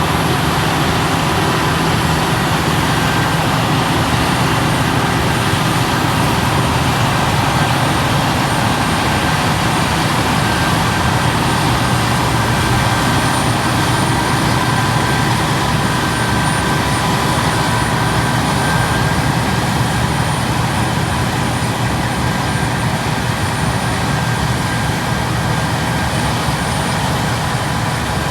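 Heavy harvest machinery running steadily: a deep diesel engine drone with constant high-pitched whines from the running gear, holding one even pitch throughout.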